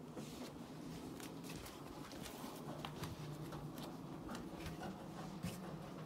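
Faint, irregular small clicks and crinkles of fingernails picking at thin protective plastic film on a new microwave part, over a low steady hum.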